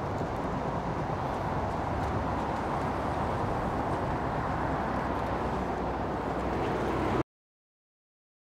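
Steady street traffic noise, swelling slightly as a car passes close by, then cut off abruptly into dead silence about seven seconds in.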